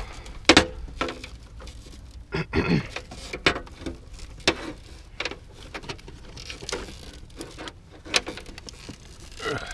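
Irregular clicks, knocks and scrapes from hand work on electrical wiring as a neutral conductor is handled and fitted into place, with the loudest knock about half a second in.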